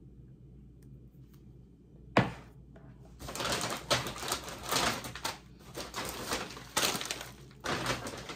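A sharp knock about two seconds in, then plastic food-packaging bags rustling and crinkling in repeated bursts as they are handled.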